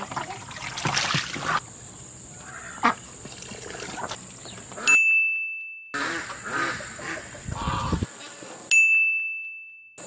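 Garden hose water running into a plastic poultry waterer, then two edited-in single-pitch dings, one about five seconds in and one near the end, each ringing out and dying away over about a second.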